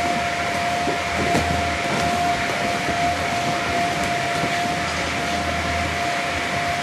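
Steady drone of an inflatable bounce house's electric blower fan: an even rushing hiss with a constant whine and a low hum underneath.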